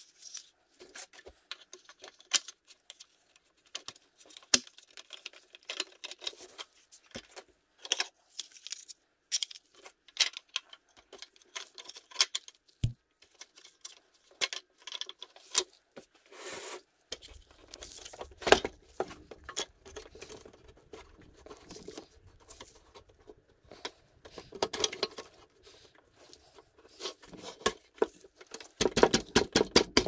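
Handling noises of a restored steel Tonka toy bulldozer: irregular clicks, taps and knocks of the metal body and rubber tracks under gloved hands, with a quicker run of clatter near the end.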